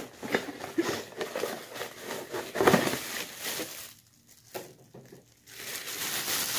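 Unpacking noises: a cardboard box and the plastic-wrapped desk fan inside it being handled, with scrapes and knocks, the loudest about two and a half seconds in. After a short pause, a thin plastic bag crinkles steadily near the end.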